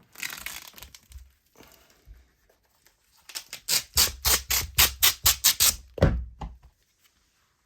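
A heavy leather replica championship belt with metal plates being handled and turned over: a rustle, then a rapid run of about a dozen scraping clicks, about five a second, ending in a short creak.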